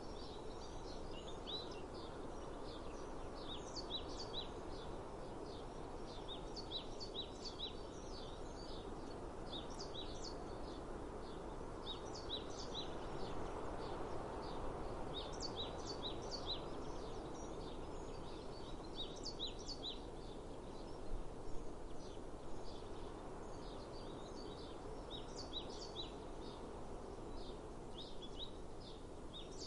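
Small birds chirping in quick, repeated short notes, over a steady outdoor background rush.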